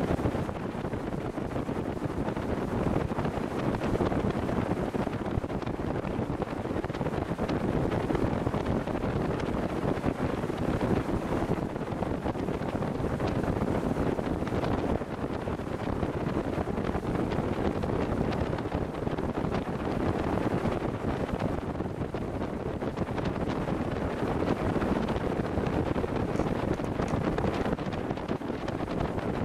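Steady wind rush over the microphone of a tritoon boat running at speed, with the boat's motor and water noise blended in beneath it.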